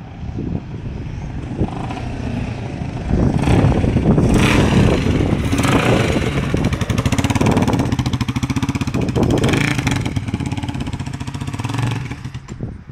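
Supercharged Honda XBR500 single-cylinder motorcycle riding by on test. It grows louder about three seconds in, is loudest as it passes close, and fades near the end as it slows and pulls away.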